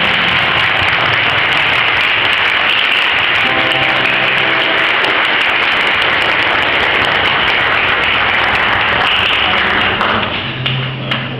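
Applause: a roomful of people clapping, which starts suddenly and dies away about ten seconds in.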